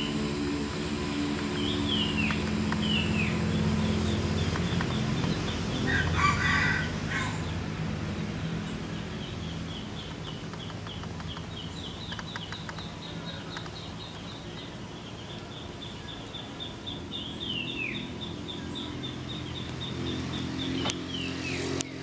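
A rooster crows once about six seconds in, over a steady low engine hum. Small birds call throughout, with downward-slurred whistles and a long fast run of short high notes.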